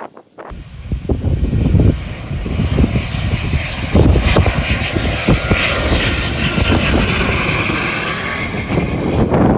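Airliner engine noise largely buried under strong wind gusts buffeting the microphone, with a steady high hiss and a faint thin whine on top. The wind rumble is the loudest part.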